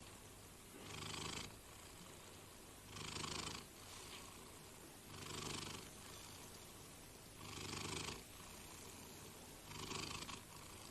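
Domestic cat purring softly, swelling louder in a slow, even rhythm about every two seconds, five swells in all.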